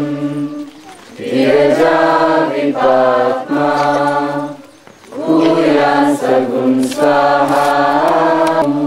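A group of voices chanting in unison in long, held phrases, with short pauses about a second in and about five seconds in.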